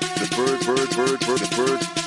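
Electronic music with a fast, even percussion beat and short synth notes that bend up and down in pitch.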